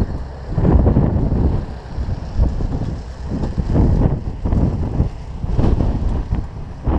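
Wind buffeting the microphone, a low rumble that comes and goes in irregular gusts.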